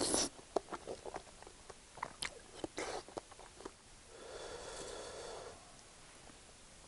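Close-up eating sounds: scattered wet mouth clicks and smacks as scrambled egg is eaten off a wooden spoon. About four seconds in, a plastic sauce squeeze bottle squirts with a steady hiss for about a second and a half.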